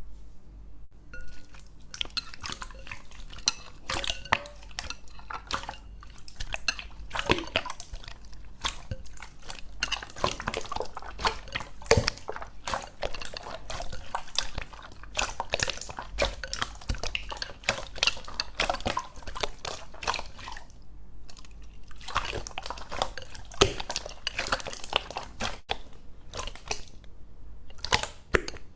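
Slime being squeezed, poked and stretched by hand, making dense runs of wet, sticky clicks and pops, with a couple of brief pauses.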